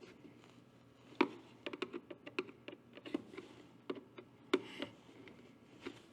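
Irregular light clicks and taps of hands handling small plastic parts while a red-dot finder sight is fitted and fastened to its base. The two loudest clicks come about a second in and about four and a half seconds in.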